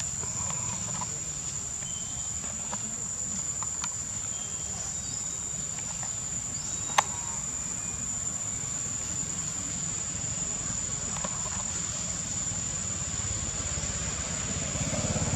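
Steady high-pitched drone of insects over a low rumble, with a few faint short chirps and one sharp click about seven seconds in.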